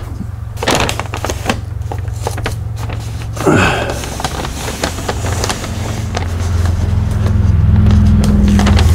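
Brown masking paper rustling and crinkling as it is handled and pressed down by hand, over a steady low hum that grows louder in the last few seconds. A brief falling swoosh comes about three and a half seconds in.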